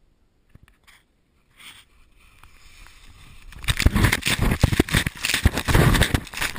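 Snow spraying and scraping as a person slides down a snowfield, the snow hitting the camera. A few small knocks at first, then a rush that builds past the middle into loud, dense crackling and thudding of snow against the lens.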